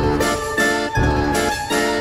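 Background music with a steady beat: a deep pulse about once a second under a repeating pattern of short high notes.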